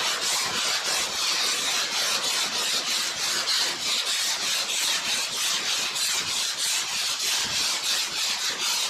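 Hand sanding block with 180-grit paper rasping back and forth over high-build primer on a car body panel, in quick even strokes several times a second.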